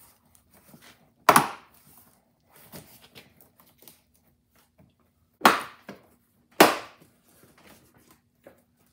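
Plastic cowl cover panel of a Mercedes-Benz W202 being pressed down by hand and snapping into its clips: three sharp snaps, about a second in, then two more about a second apart after five seconds, with light plastic clicks and rattles between.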